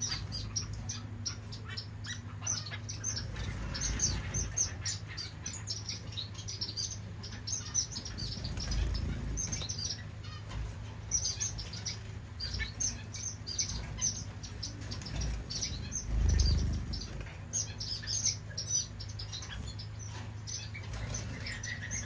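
Caged long-tailed finches (shaft-tails) chirping, many short high calls overlapping without pause, with wing flutters. A steady low hum runs underneath, and a few dull low thuds come through, the loudest about two-thirds of the way in.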